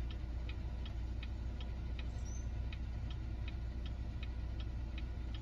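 Hazard warning flasher of a 2021 Cadillac XT5 ticking evenly, about two and a half ticks a second, over the low steady hum of its idling 3.6 L V6.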